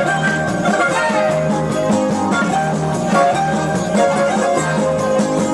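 Greek dance music led by plucked strings, playing steadily over a regular bass beat.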